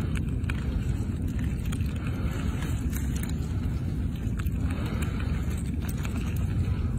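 Fox squirrel gnawing at a nut in the shell: irregular small clicks and scraping. A steady low rumble runs underneath and is louder than the gnawing.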